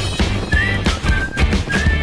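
Background music with a heavy bass and a steady drum beat, carrying a high melody line that slides between notes.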